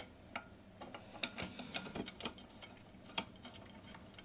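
Faint, irregular small metallic clicks and taps as a nut, bolt and washer are fitted by hand to the side frame of a Ransomes Ajax reel cylinder mower.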